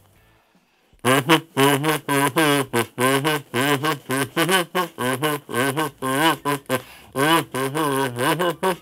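A small red plastic kazoo buzzing out a song melody in short, separate notes that waver in pitch, starting about a second in.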